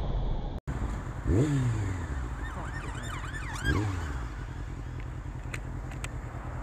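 Motorcycle engine and wind noise while riding at traffic speed, steady, with two quick revs that rise and fall in pitch about a second in and near four seconds in. A short run of warbling high chirps sounds in the middle.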